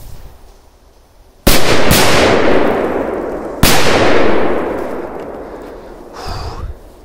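K05 firecrackers exploding: two bangs about half a second apart, then a third about two seconds later, each trailing off in a long echo.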